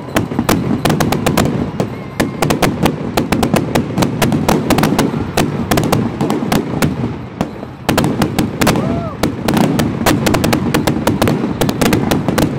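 Aerial fireworks display: a rapid, dense run of bangs and crackles from bursting shells, with a brief lull about two-thirds of the way through and a few faint whistles among them.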